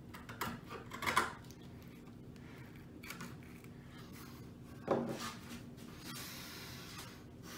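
Screwdriver scraping and prying wood chips out of the bottom of a mortise in a wooden board: a run of short scrapes about a second in. A single knock near five seconds, then a soft rubbing hiss near the end.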